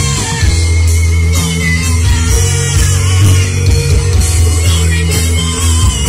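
Live rock band playing loud through stage speakers: electric guitars over a heavy, sustained bass line.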